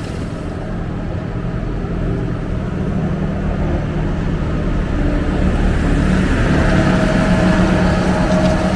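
Large farm machine's engine running steadily, growing slightly louder in the second half.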